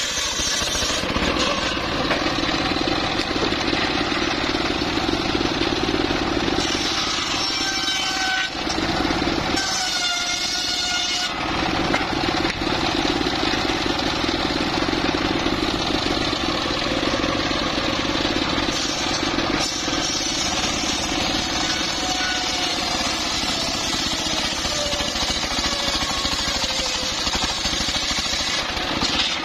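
Homemade engine-driven circular saw ripping a teak log lengthwise: the motor runs steadily while the big blade cuts through the wood. The sound eases off briefly about ten seconds in with a short rising whine, then the cutting noise resumes.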